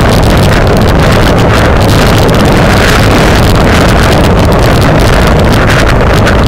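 Steady, loud wind buffeting on the microphone of a bike-mounted camera riding at race speed, a constant low rumble.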